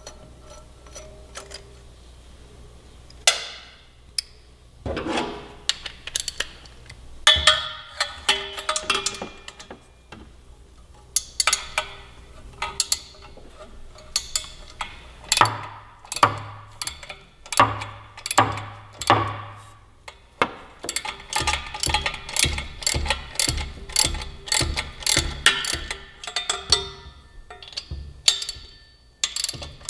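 Ratchet wrench with a 12 mm deep socket clicking in bursts of rapid ticks, with metal clinks, as the exhaust header flange nuts are loosened at the cylinder head.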